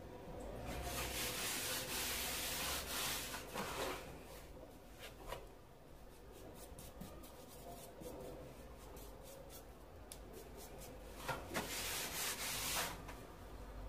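A hand and cloth rubbing over old red terracotta hexagonal floor tiles (tomettes), wiping them clean. There are two spells of scrubbing, one of about three seconds near the start and a shorter one near the end, with a few light taps between.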